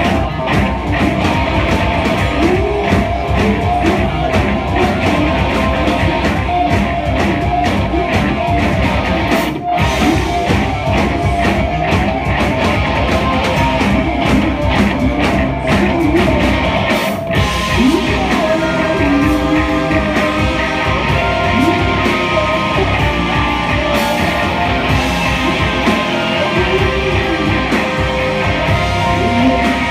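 Live rock band playing loudly: electric guitars, bass guitar and drums, with a male singer singing into a microphone. The music breaks off for an instant twice, about ten seconds in and again a little past the middle.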